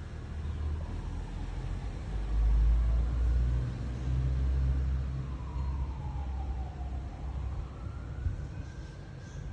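Low rumble of passing road traffic, with a distant siren wailing slowly down and back up in the second half.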